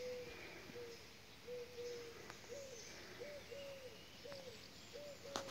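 A bird's low cooing calls, a steady series of short notes on one pitch, about two a second.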